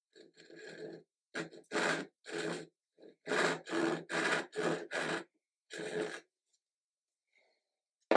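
Hand backsaw cutting wood: about a dozen short rasping strokes over some six seconds, then the sawing stops. Near the end comes a single sharp knock.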